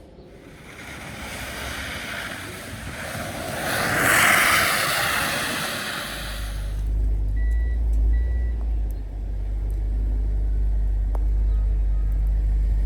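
A vehicle passes on a slushy street, its tyre hiss swelling to a peak and fading over about six seconds. It is followed by a steady low rumble with two short high beeps.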